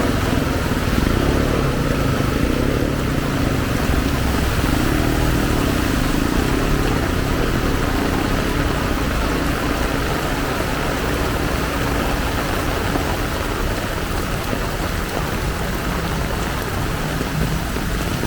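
Heavy rain falling steadily, with a motor vehicle's engine running close by during the first several seconds.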